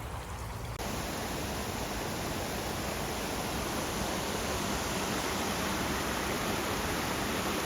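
Creek water rushing steadily over its bed, the creek running after heavy rain on a normally dry bed. The rush starts abruptly about a second in.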